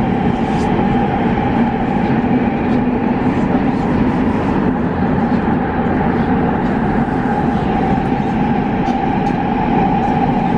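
Škoda Varsovia metro train running at steady speed in the tunnel, heard inside the car: an even rumble of wheels on rails with a constant hum and faint ticks.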